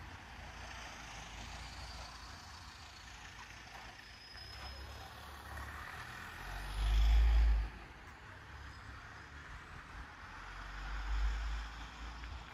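City street ambience with a steady wash of distant traffic, broken by a deep rumble about seven seconds in, the loudest sound, and a weaker one near the end.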